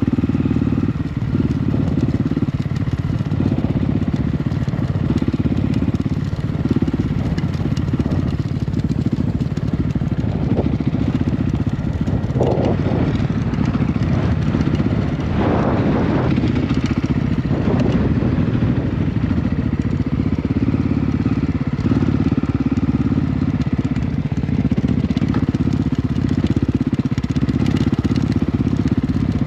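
Honda CRF250F's single-cylinder four-stroke engine running steadily as the trail bike is ridden, with a few brief noisier stretches about halfway through.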